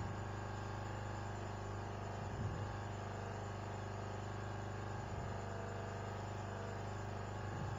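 Steady low electrical hum with many overtones, with three faint soft bumps: about two and a half seconds in, about five seconds in, and near the end.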